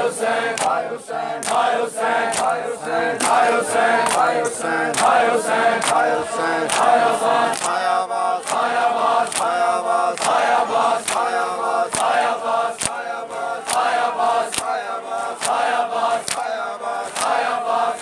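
Many men chanting a mourning lament together while beating their chests with open palms (matam), the slaps falling in a steady rhythm of sharp claps under the chant.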